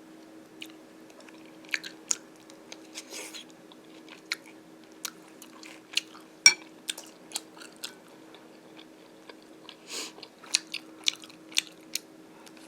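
A person chewing and biting crunchy food: irregular sharp crunches, several a second in spells, over a faint steady hum.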